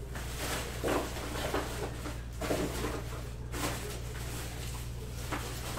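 Rustling and handling noises at a desk, in two short clusters of scuffs about a second apart, over a steady low hum.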